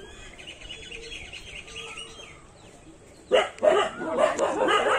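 Faint bird chirps, then a little over three seconds in, dogs start barking loudly and repeatedly.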